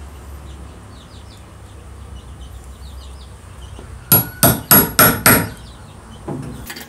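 Five quick hammer blows, about three a second, driving a toothed hole-saw bit into the end grain of a wooden block, followed by one softer knock.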